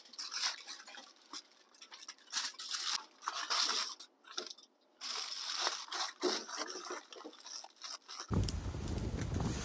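Aluminium foil crinkling and crackling in irregular bursts as a foil packet is folded shut, with a short pause midway. Near the end, wind rumbles on the microphone.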